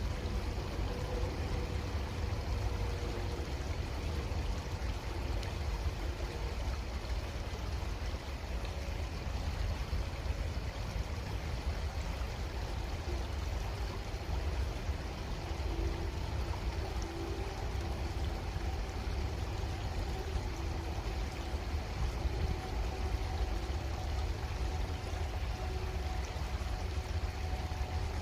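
Creek water running steadily, with a constant low rumble beneath it.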